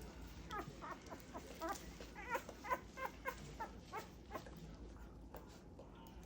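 Two-week-old Great Pyrenees puppy whimpering in a run of short, high squeaks, two or three a second, that trail off about four and a half seconds in.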